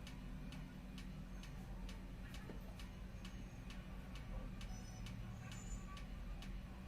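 Steady, regular ticking, about two ticks a second, over a low hum.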